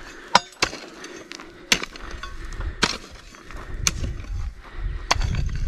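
Hand digging tool chopping into soil to open an irrigation channel around a young tree, with sharp strikes about once a second.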